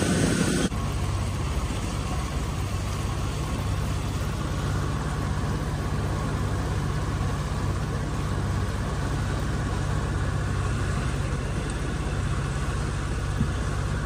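Boat engine running at a steady speed as the boat cruises, a constant low hum under a steady hiss; the level steps down a little just under a second in.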